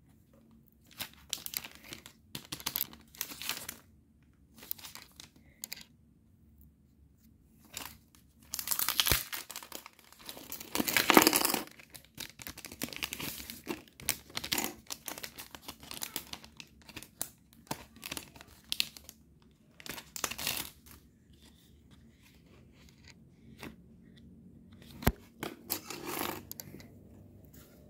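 Clear plastic sticker packets crinkling and rustling in bursts as they are opened and handled, with some tearing and peeling; the longest, loudest stretch comes about nine to twelve seconds in. Two sharp taps, one about nine seconds in and one near the end.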